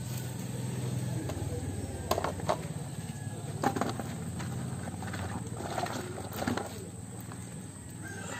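Handling noise: dry leaf strips crackling and a crab being lifted out of a plastic bucket, heard as a handful of sharp crackles and knocks between about two and six and a half seconds in. A steady low hum runs underneath and fades about halfway through.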